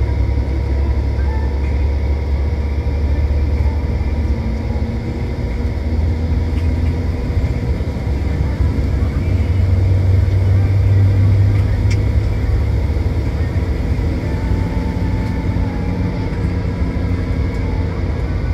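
Rear-engined Mercedes-Benz OH intercity bus on the move: a steady low engine and road rumble that swells for a few seconds around the middle.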